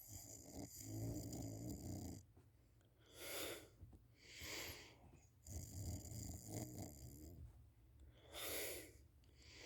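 A sleeping person snoring: two low snores of about two seconds each, one at the start and one about halfway through, with short breathy puffs of breath between and after them.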